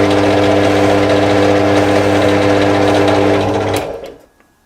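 Energer 350 W drill press motor switched on for its first test run, running steadily with no load and a steady hum. Near the end it is switched off and winds down briefly.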